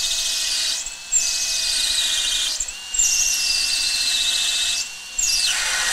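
Festool cordless drill running steadily with a motor whine as its acrylic-specific bit bores a water-cooled hole through an acrylic sheet. The cutting hiss eases off briefly three times while the drill keeps spinning.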